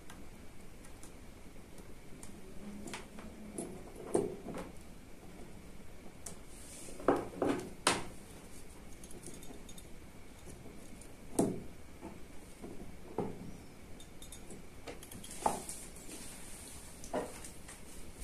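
Irregular light clicks and knocks of small tools and a high-voltage cable being handled and set down on a workbench, a dozen or so scattered through, the loudest a quick pair about halfway and another a few seconds later.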